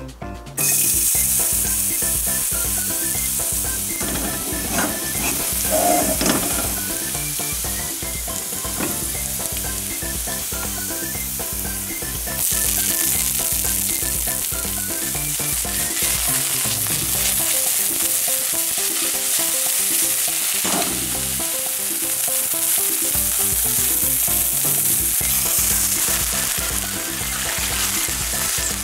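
Minced garlic sizzling in hot oil in a steel frying pan, starting suddenly as it hits the pan. About twelve seconds in, the sizzle gets louder as chopped garlic chives and onion go in.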